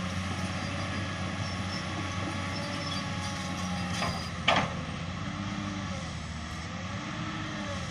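Komatsu PC200 excavator's diesel engine running steadily, with a sharp metallic clunk about four and a half seconds in.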